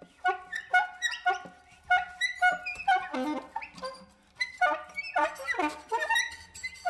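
Free improvisation on soprano saxophone and prepared guitar: short, clipped pitched notes and sharp plucked attacks in uneven bursts. The playing thins almost to nothing about four seconds in, then grows busier.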